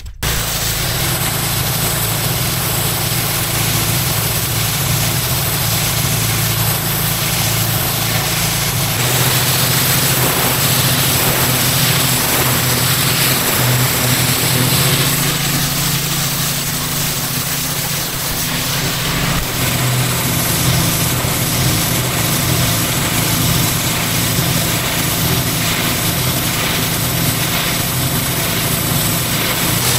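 A petrol pressure washer engine running steadily under load, with the hiss of the high-pressure water jet over it. It cuts in sharply at the start.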